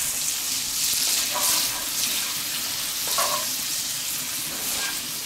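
A piece of butter sizzling and bubbling in hot melted sugar caramel in a cast-iron skillet, with a wooden spatula stirring and scraping through it as a steady hiss.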